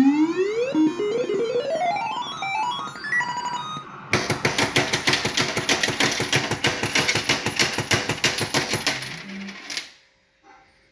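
Fruit machine electronic sound effects: rising, stepped bleeping tones for about four seconds, then a fast, steady run of ticking beeps as the cash meter counts down. The beeps stop suddenly about a second before the end.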